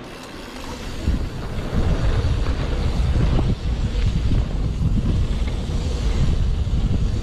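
Wind buffeting a helmet camera's microphone during a fast mountain-bike descent on a dirt trail, a low rumble that builds over the first second or two as speed picks up and then holds steady, with a few faint knocks from the bike.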